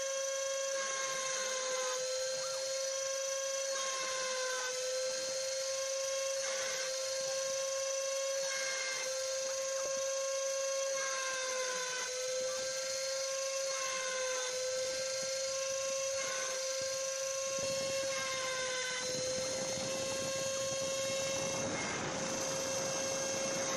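Homemade CNC machine's spindle motor running with a steady high whine and overtones, its pitch sagging briefly every couple of seconds as the cutter takes load while engraving a shallow 0.2 mm pass in an aluminium plate. A rougher hiss of cutting noise joins about three quarters of the way through.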